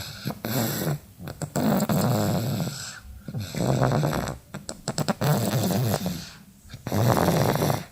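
A sleeping child snoring heavily from exhaustion, a low rattling snore on each breath, about one every two seconds with short pauses between.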